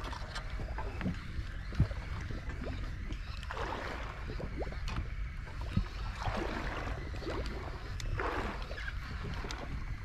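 Small waves sloshing against the hull of a drifting boat in swells a couple of seconds apart, over a steady low rumble, with a few sharp clicks.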